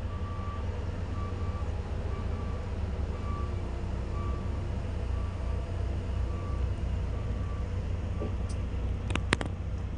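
Heavy diesel truck engine rumbling steadily as a loaded Volvo dump truck approaches and passes. A faint beeping alarm repeats about once a second throughout, and a few sharp clicks come near the end.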